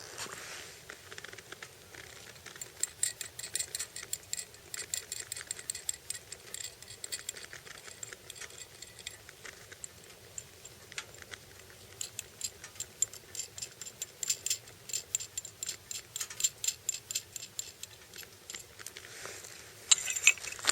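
Light, sharp clicking and ticking, several clicks a second, in two long irregular runs, with a short louder cluster near the end.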